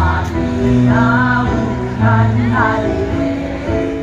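A junior high school choir of girls and boys singing together in parts, with held notes that change about every second.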